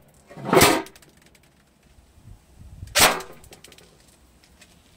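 Cyma AK-47 electric airsoft rifle shooting 0.25 g BBs into a thin aluminium baking pan at close range: two shots, about half a second in and about three seconds in, each the gun's snap merged with the BB striking the pan.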